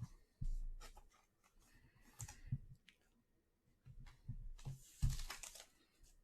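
Baseball trading cards being handled on a table: scattered light clicks and taps, with a couple of brief rustles.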